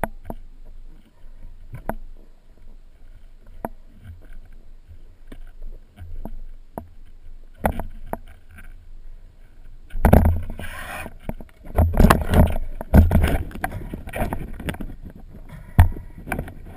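Muffled underwater sound through a camera's waterproof housing: scattered sharp clicks and knocks, then from about ten seconds in a louder stretch of rumbling, sloshing water noise with repeated knocks, and one sharp knock near the end.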